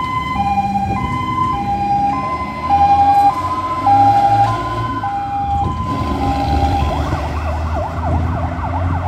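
Fire engine siren sounding a two-tone hi-lo pattern, switching between two pitches about every half second. About seven seconds in it changes to a fast rising-and-falling yelp. Two louder, deep blasts come about three and four seconds in, over a low engine rumble.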